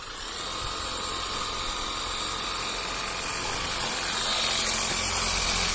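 Battery-powered 40V AiVolt pressure washer running and spraying water on its 20-degree nozzle setting. A steady spray hiss sits over the hum and whine of the electric motor and pump, and it grows louder about four seconds in.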